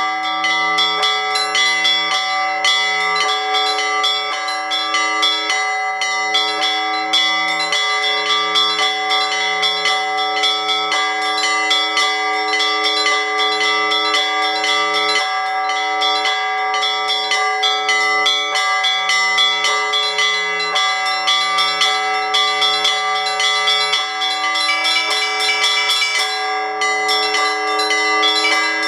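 Orthodox church bells rung together by a bell-ringer: small bells struck rapidly in a steady rhythm over the long-ringing tones of the larger bells, with a low bell pulsing underneath.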